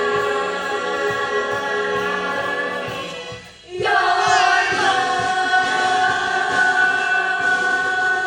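Ensemble of voices singing a musical-theatre number in long held chords. About three and a half seconds in the chord fades and breaks off, then the ensemble comes back in on a new held note, sliding up into it.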